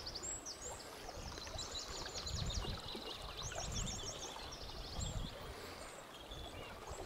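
Small songbirds singing quick runs of high, repeated notes, with wind gusting on the microphone.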